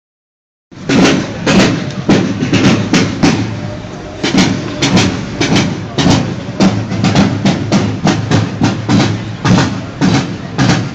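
Marching field drums beating a steady cadence, about two strokes a second, starting just under a second in.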